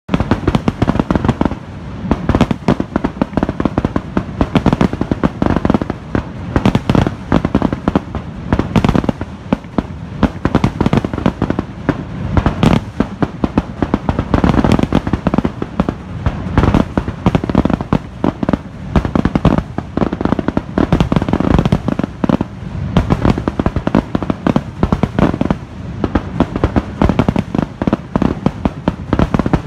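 A fireworks finale: aerial shells bursting in a rapid, unbroken barrage of overlapping booms and crackles, with no pause between them.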